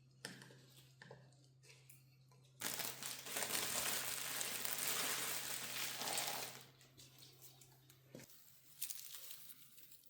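Crinkling and rustling of packaging or wrapping being handled, loudest for about four seconds in the middle, over a low steady hum that cuts off with a click about eight seconds in.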